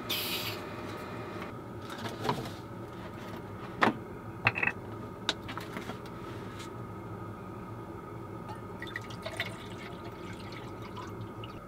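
A few sharp clicks and knocks as the parts of a Jetboil camp stove are handled and fitted together, then water poured from a plastic gallon jug into the Jetboil cup, gurgling over the last few seconds.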